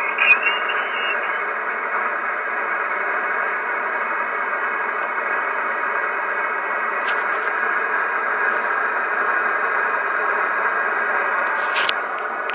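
Steady static hiss from a Yaesu FT-857D's speaker as it receives upper sideband on the 15-meter ham band while the dial is tuned down between stations. There are a couple of clicks near the end.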